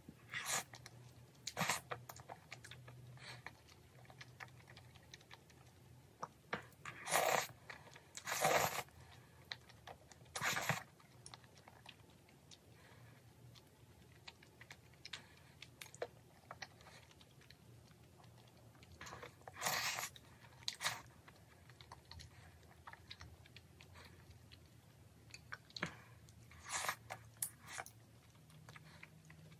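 A person chewing and biting into tteokbokki with glass noodles: irregular small mouth clicks, with several louder half-second bursts of eating noise.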